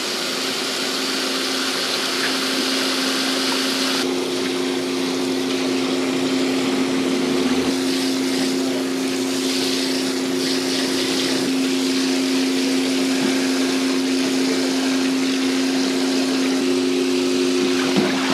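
Tap water spraying onto raw shrimp in a plastic basket in a sink, a steady rushing, over a constant low mechanical hum.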